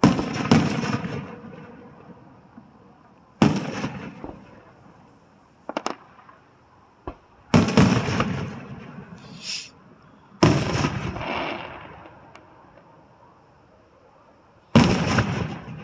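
Aerial firework shells bursting: five loud booms a few seconds apart, each trailing off in a rumble over a second or two, with a couple of smaller sharp pops between them.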